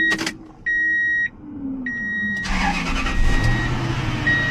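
A truck's warning chime beeps in steady, evenly spaced tones about once a second. The engine is started with a newly programmed key, catching about two and a half seconds in and then running.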